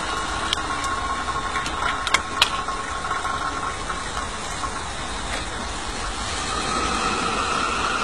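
Miniature coal-fired live steam locomotive standing in steam: a steady hiss, with a few sharp metallic clinks about two seconds in. The hiss grows stronger near the end.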